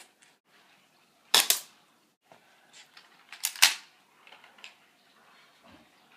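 BB gun firing two shots about two seconds apart, each a short sharp crack.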